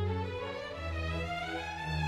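Recorded music for bowed strings: a sustained melody rising in pitch through the middle, over changing low bass notes.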